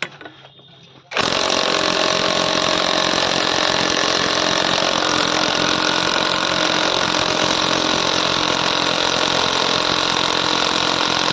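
A power tool's motor running steadily at full speed. It starts abruptly about a second in and holds an even pitch and level.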